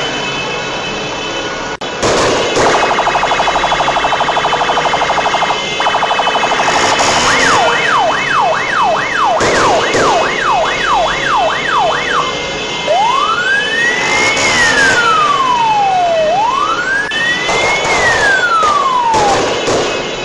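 Electronic vehicle siren cycling through its tones: a fast warble, then a quick repeated yelp of about two sweeps a second, then a slow rising and falling wail, heard over steady traffic noise.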